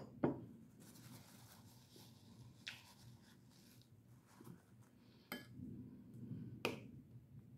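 A spoon clicking against a bowl about four times, with soft rubbing and handling sounds between; otherwise quiet.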